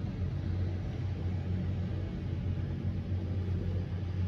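A steady low engine drone, even in pitch and level throughout.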